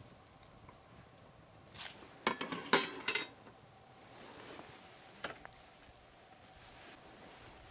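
Metal utensils clinking against stainless steel camp bowls and plates: a quick cluster of clinks about two seconds in, and one more clink a couple of seconds later.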